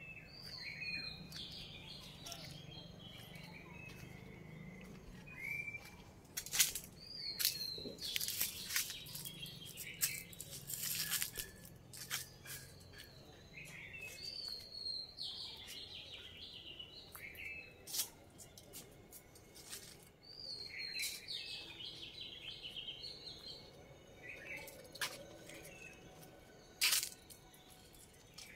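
A songbird singing a short phrase of descending whistled notes, repeated several times about every six or seven seconds, with scattered sharp clicks between the phrases.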